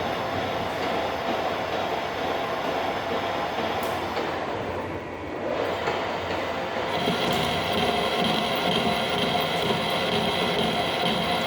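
Metal lathe running, a steady mechanical noise; it eases briefly about five seconds in, then a steady high whine joins it from about seven seconds on.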